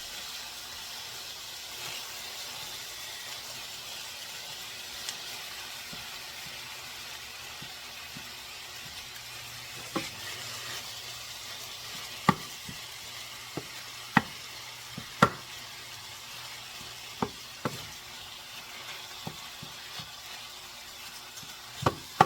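Ground beef frying with onions and carrots in a pan, sizzling steadily. From about ten seconds in, a stirring utensil clacks sharply against the pan several times.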